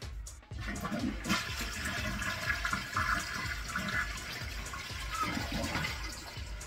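Toilet being flushed: water rushing from the tank through the bowl, starting about a second in.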